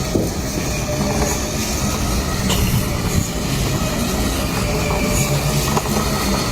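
A heavy machine running steadily with a continuous mechanical rumble, and a few sharp knocks over it.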